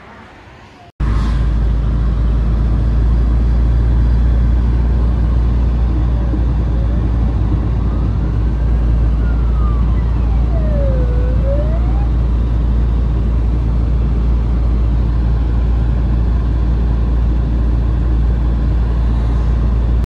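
A loud, steady low rumble starts suddenly about a second in. Around the middle, an emergency-vehicle siren wails up and down once.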